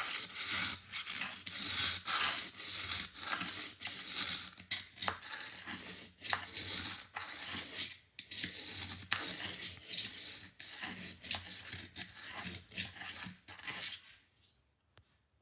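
Tungsten carbide clay trimming tool being sharpened, its edge rubbed back and forth against an abrasive in repeated scraping strokes that stop near the end.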